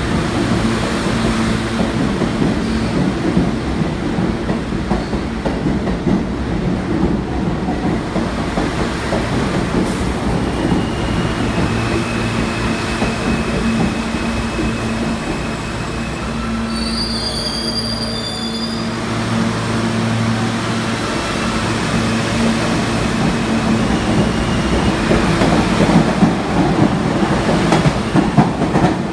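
New York City subway trains running at a station platform: a steady motor hum and rumble from the cars, with a brief high wheel squeal partway through. Near the end a train pulls in past the microphone, and it grows loudest there.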